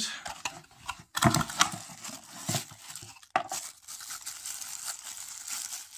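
Plastic packaging crinkling and rustling as it is handled and opened, with sharp crackles in the first half, then a steadier rustle.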